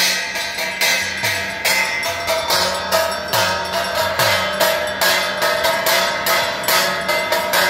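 Devotional aarti music: bells and hand cymbals struck in a steady rhythm, about three or four strikes a second, over a steady instrumental or chanted bed with occasional low drum strokes.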